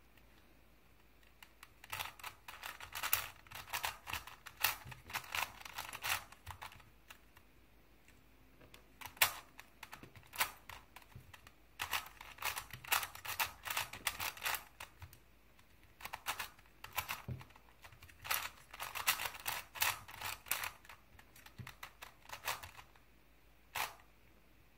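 Crazy 3x3 Plus Mars plastic puzzle cube being turned by hand: quick runs of clicking and clattering layer turns in several bursts, with short pauses between them.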